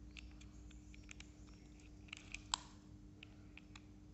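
Faint clicks and ticks of hard plastic as a screw is turned into a plastic toy excavator with a toy screwdriver, with one sharper click about two and a half seconds in. A steady low hum runs underneath.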